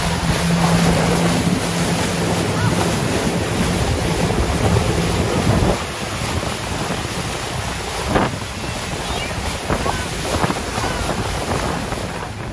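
Wind buffeting the microphone over water, with a boat motor's steady low hum that stops about six seconds in.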